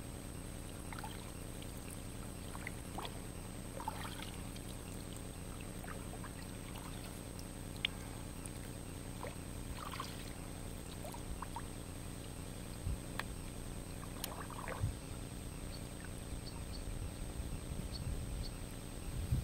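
Water trickling and dripping from kayak paddle blades, with small scattered splashes as an inflatable kayak is paddled along a slow river, over a steady low hum.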